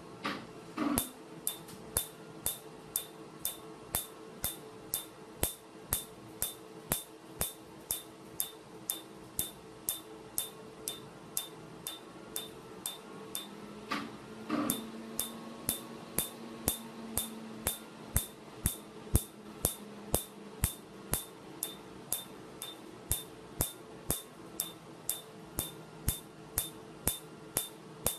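PicoWay picosecond laser pulses hitting tattooed skin: a sharp snap about twice a second, in an even rhythm, over a steady low hum from the laser unit.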